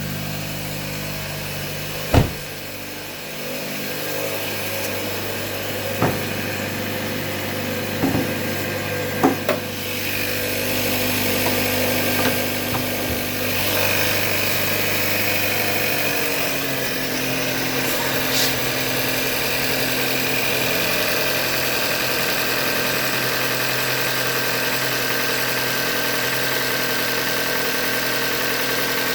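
2015 Hyundai Elantra Limited four-cylinder engine running at idle; the owner puts its knock down to a short block failure. There are a few sharp clicks in the first ten seconds, the engine gets louder about ten seconds in, and its note settles lower about sixteen seconds in.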